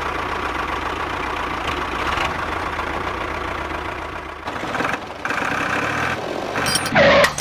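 Tractor engine running steadily at idle, with a short break about four and a half seconds in and a brief louder sweeping sound near the end.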